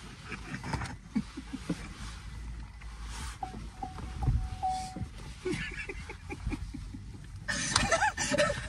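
People laughing inside a car over a steady low rumble, the laughter getting louder near the end.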